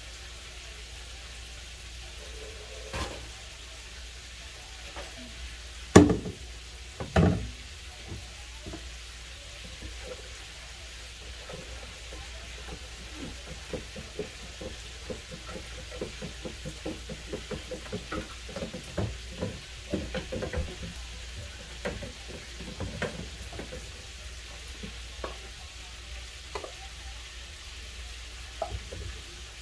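A wooden spoon stirring sweet tea in a plastic pitcher, making a quick run of small clicks and knocks from about 12 to 24 seconds. A few loud knocks come earlier, about 6 and 7 seconds in. Under it all runs the steady sizzle of chicken frying in oil.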